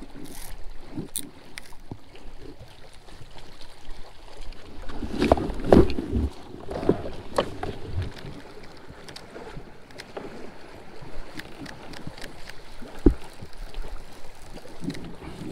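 Water lapping and sloshing against a kayak hull, with scattered small clicks and knocks from rod and reel handling. There is a louder cluster of knocks about five to six seconds in and a single sharp knock near the end.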